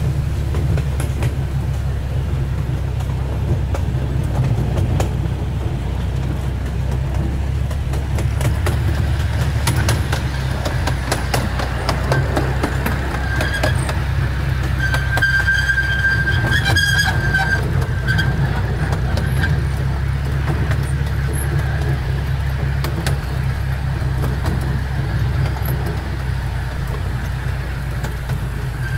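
Miniature ride-on park train running along its track, with a steady low rumble from the wheels and train and scattered clicks. A high-pitched tone lasts about two seconds near the middle.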